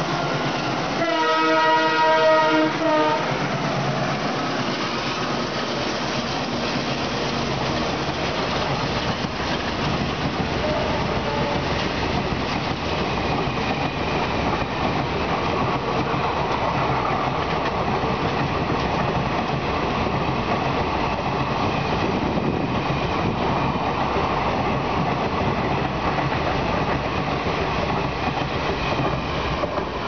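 A WDM-3D diesel locomotive sounds its EMD-type horn, a loud multi-tone blast about a second in that lasts about two seconds. Its express train then runs through at speed, the coaches rumbling and clattering steadily over the rail joints as they pass.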